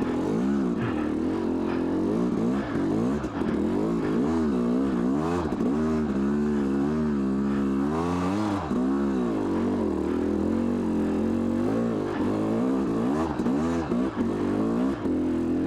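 2002 Yamaha YZ250's single-cylinder two-stroke engine being ridden, revving up and falling off again and again as the throttle is worked.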